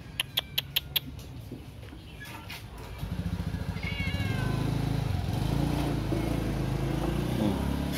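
A cat meows once, a short falling call about four seconds in. An engine starts up close by about three seconds in and runs on under it, louder than the cat. Five quick sharp clicks come in the first second.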